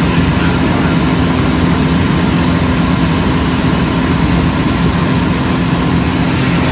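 Pitts aerobatic biplane's engine and propeller running steadily in flight, heard from inside the cockpit as a loud, even drone with a steady low hum and rushing air.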